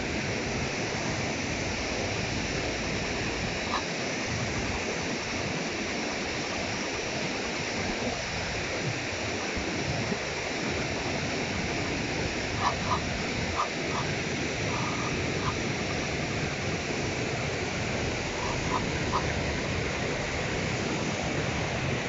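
Steady rush of river water pouring over a low weir, with a few short high blips now and then, mostly in the middle and near the end.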